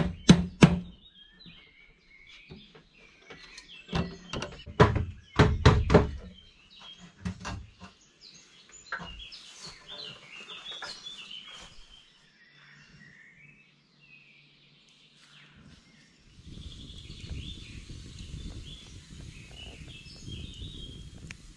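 Small birds chirping in the woods, with sharp wooden knocks and thunks from hand-tool work: a quick run right at the start and another cluster about four to six seconds in. A low rustling noise sets in near the end.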